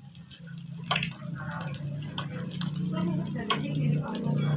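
Eggs frying in oil in the cups of a multi-cup egg pan: a steady sizzle with many scattered pops and clicks as the spoon works an egg loose. A low hum grows louder near the end.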